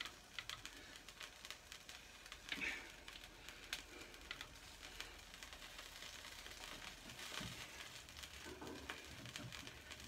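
Faint sizzling and scattered sharp crackles from a chicken roasting on a charcoal grill, as basting oil and juices drip onto the hot coals.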